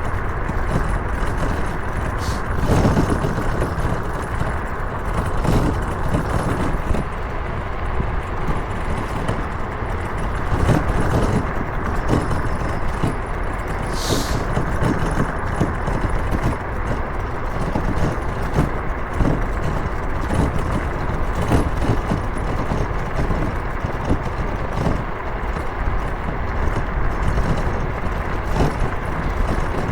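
Motorcycle being ridden at road speed: steady engine and road noise, with a brief sharp hiss about halfway through.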